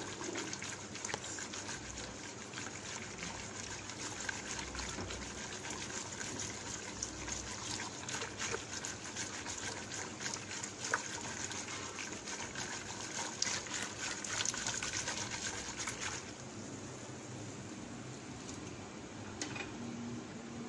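A whisk stirring thick milk and rice kheer in a pot on a low flame: a steady wet swishing with many small clicks of the whisk against the pot. Near the end the stirring stops and a quieter steady hiss remains.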